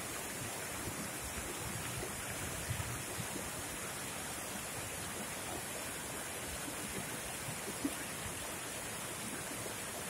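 Small rocky mountain stream cascading over boulders and stones, a steady rush of splashing water.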